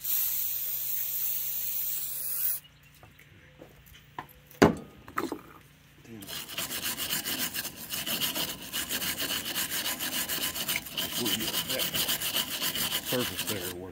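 An aerosol can of brake parts cleaner hissing onto a brake caliper bracket for about two and a half seconds, then a single knock. From about six seconds in, a wire brush scrubs the bracket in rapid back-and-forth strokes, clearing old grease and rust where the pad clips seat.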